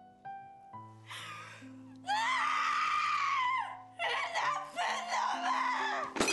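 A woman wailing in anguish over a soft music score: a long, high, wavering cry about two seconds in, then broken sobbing cries. A sharp crash comes at the very end.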